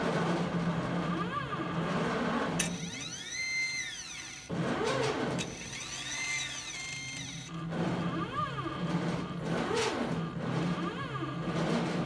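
CNC plasma cutting table running: a steady hiss and low hum while it cuts. Several times the gantry's motors whine up in pitch and back down as the torch moves, most clearly twice in the middle, when the hum drops out.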